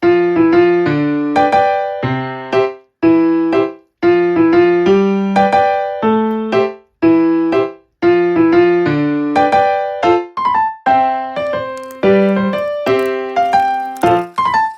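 Background music: a light piano tune, with chords played in a repeating pattern.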